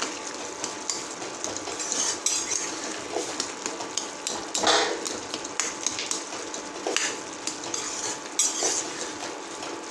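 Steel ladle knocking and scraping against a metal pot as soft cooked vegetables are mashed and stirred into pav bhaji, with irregular clinks and a louder knock about halfway through.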